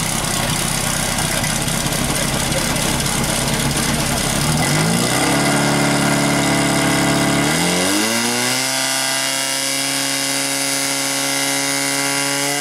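Portable fire pump engine running hard. Its pitch steps up twice, about five seconds in and again near eight seconds, then holds steady at high revs as the pump drives water through the attack hoses to the nozzles.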